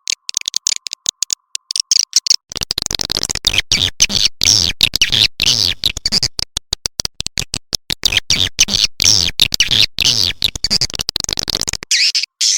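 Swiftlet lure recording: swiftlets calling in rapid, high chirping twitters, chopped by many short silences. From about two and a half seconds in until near the end, a low rumbling layer runs beneath the calls.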